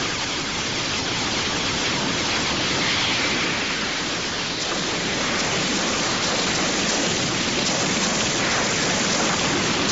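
Animated energy-beam blast sound effect: a steady, loud rushing hiss.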